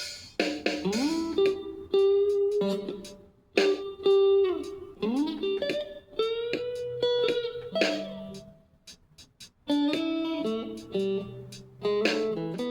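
A guitar playing single plucked notes and short phrases, some notes bent or slid upward in pitch, with brief pauses between phrases.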